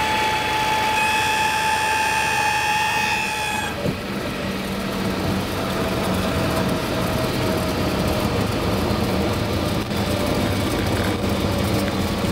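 Light aircraft landing: a steady high tone over rushing air noise, which stops abruptly at touchdown about four seconds in, followed by the rumble of the plane rolling out along the runway.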